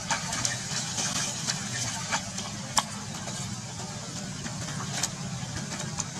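Young macaques splashing and wading in a shallow puddle, with a handful of short, sharp splashes and knocks. A steady low motor hum runs underneath.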